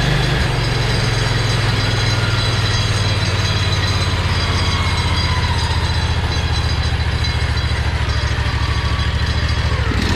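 Predator 670 V-twin engine running at a steady speed, a loud low even drone.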